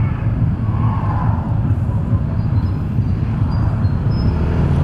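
Motorcycle riding at low speed in street traffic: engine running under a loud, fluttering rumble of wind on the camera microphone.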